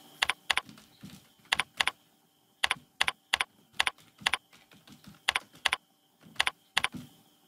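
Typing on a computer keyboard: a string of separate key clicks at an uneven, unhurried pace, with short pauses between bursts.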